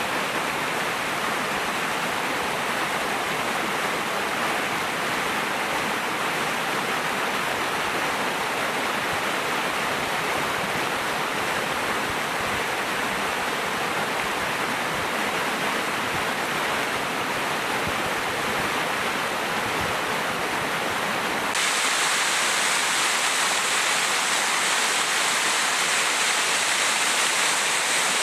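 Rushing water, a steady even rush. About 21 seconds in it cuts suddenly to a slightly louder, hissier rush of another stretch of water.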